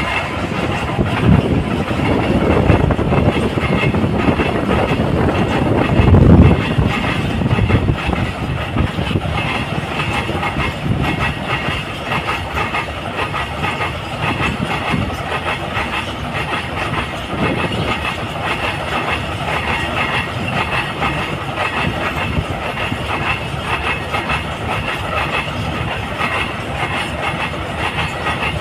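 Freight train's open wagons rolling past at speed, their wheels clacking steadily over the rail joints. The train is briefly louder about six seconds in.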